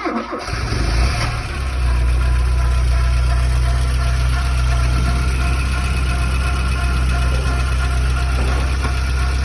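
Porsche 924's four-cylinder engine just after a cold start: uneven for about the first second, then settling into a steady idle.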